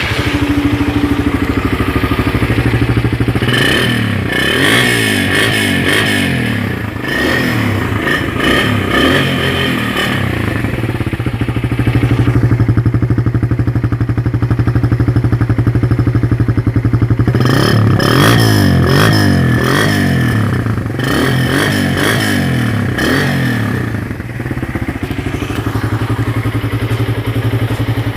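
Suzuki Raider R150 carburetted motorcycle's single-cylinder four-stroke engine running through its stock muffler with the catalytic converter removed: idling, with two spells of repeated throttle blips, a few seconds in and again past the middle.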